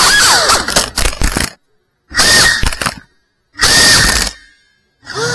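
GEPRC Cinelog cinewhoop drone's motors and propellers whining, the pitch dropping sharply, followed by rattling clicks and knocks. The sound cuts out abruptly to silence three times, with short bursts of whine and clatter between the cuts.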